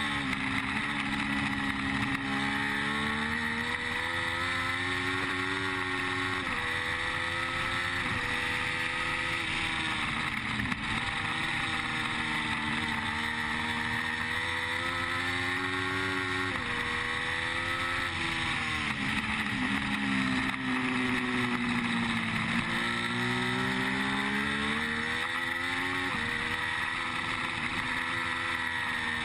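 Triumph Street Triple's three-cylinder engine under racing load, heard from on board: its pitch climbs steadily, drops sharply at each upshift (three times), and winds down twice, with steady wind rush over the machine.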